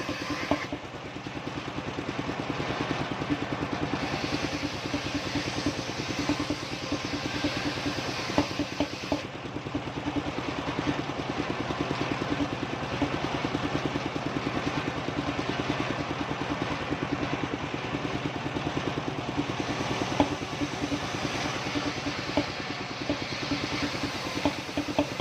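Engine driving a circular sawmill, running steadily with a rapid, even chugging beat.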